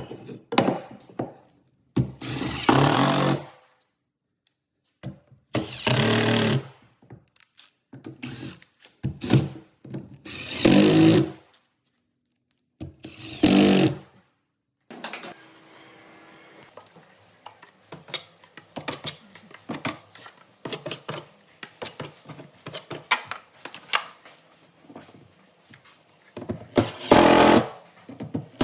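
Power tool run in about five short bursts of a second or so each, with gaps between them. Then comes a longer stretch of quieter scraping and handling of tools on drywall.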